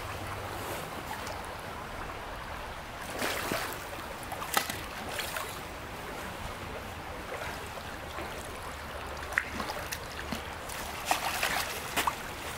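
Steady rush of a small creek's flowing water, broken by a few short splashes or knocks.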